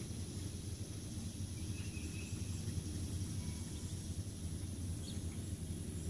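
Outdoor yard ambience: a steady high insect drone over a low, steady rumble, with a faint brief chirp about two seconds in.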